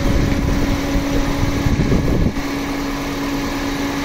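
A 2021 Toyota Yaris petrol engine idling under the open bonnet, with the AC switched on: a steady mechanical hum with one held tone, and a heavier rumble for the first two seconds. The AC compressor is not engaging, although power reaches it.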